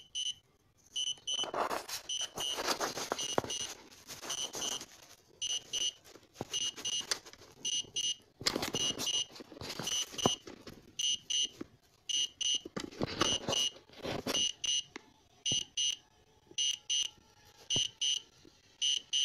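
Electronic warning beeper sounding short, high-pitched beeps, mostly in pairs, about once a second. Three stretches of rushing noise come and go underneath.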